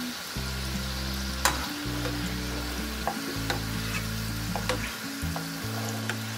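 Potato-dough balls deep-frying in vegetable oil, a steady sizzle throughout. A handful of sharp clicks come as the metal slotted spoon scoops through the pan, the loudest about a second and a half in.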